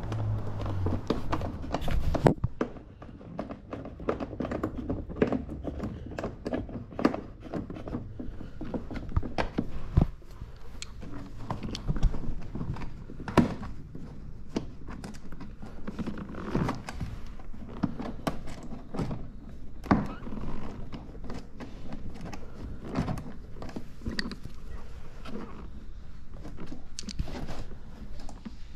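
Irregular clicks and knocks of hand work on a jet ski's hard plastic bodywork: a ratchet undoing the console's side bolts and the plastic panels being handled, with a few sharper knocks.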